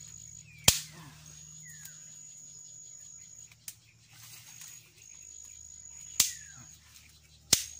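Insects trilling steadily at a high pitch, with short gaps, under three loud sharp cracks about a second in, near six seconds and just before the end. The cracks come from sticks being handled over a smouldering fire of damp wood.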